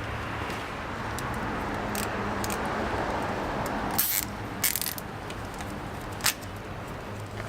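A few sharp plastic clicks and light rattles of a zip tie being fitted and cinched around the relay wiring, over a steady low hum.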